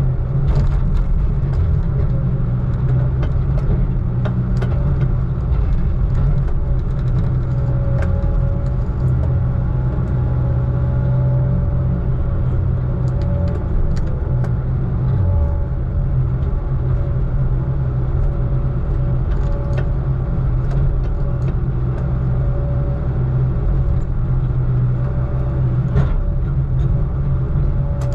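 Heavy diesel engine running steadily with a deep, even rumble, with a few light clicks and rattles over it.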